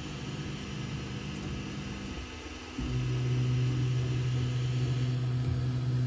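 Qidi X-Max 3 CoreXY 3D printer running its auto bed leveling routine: a steady machine hum of motors and fans. About three seconds in it changes to a louder, lower steady hum.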